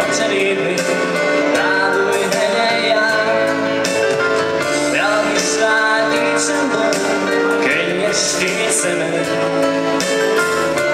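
A man singing into a microphone to his own electronic keyboard accompaniment, the keyboard playing sustained chords over a steady drum beat.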